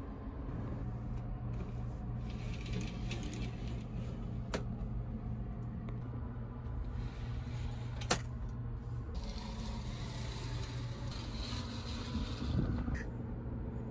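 Steady hum of a train standing at a station, heard inside its compartment, with two sharp clicks and stretches of hiss; near the end there is a brief bump as a curtain is pulled aside.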